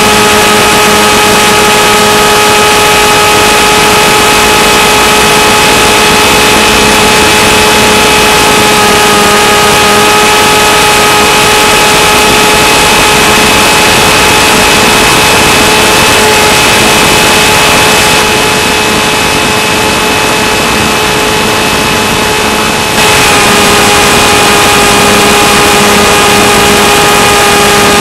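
Electric motor and propeller of a Skywalker FPV plane whining at steady cruise throttle, one even pitch throughout, under a loud steady hiss.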